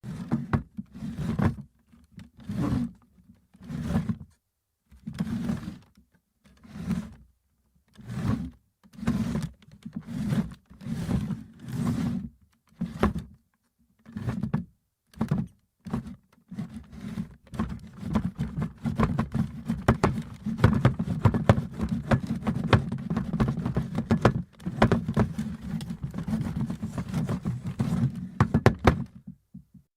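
Wooden chair moved over the floor: a dozen or so short scrapes and knocks, roughly one a second, then from about halfway through a near-continuous scraping drag with many small clicks and rattles, stopping just before the end.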